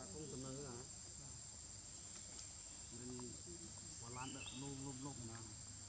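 Steady high-pitched insect drone, with faint voices talking briefly at the start and again a few seconds in.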